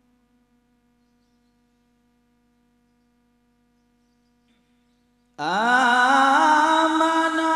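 A faint steady hum for about five seconds. Then a man's voice suddenly begins a melodic Qur'an recitation over a microphone, sliding up in pitch into a long held note.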